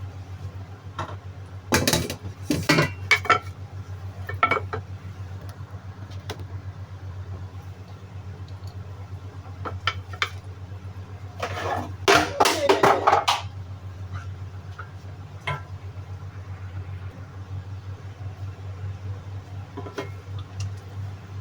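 Cookware clattering: a utensil knocking and scraping against a cooking pot in a few short bursts, the longest about twelve seconds in, over a steady low hum.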